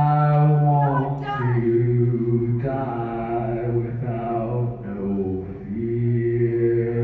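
A man singing a cappella into a microphone, with no instruments: long held low notes that slide slowly from one pitch to the next.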